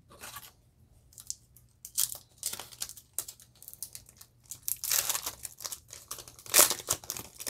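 Foil Yu-Gi-Oh! Toon Chaos booster pack crinkling as it is handled and torn open by hand, in a run of short crackles, loudest in the second half.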